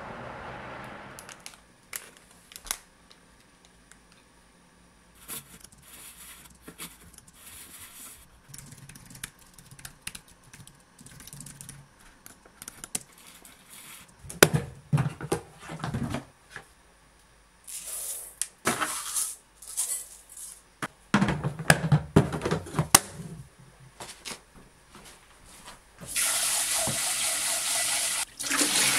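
Scattered small clicks and a few louder knocking bursts of handling, then about three seconds before the end a kitchen tap starts running steadily into a glass bowl of rice.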